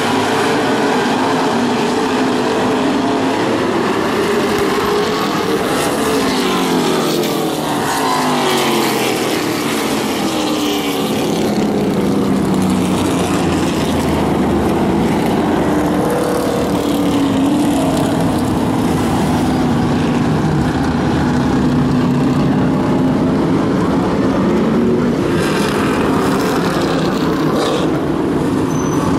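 A field of open-wheel modified race cars running at speed around a short oval, several engines at once, their notes rising and falling as cars pass and fade.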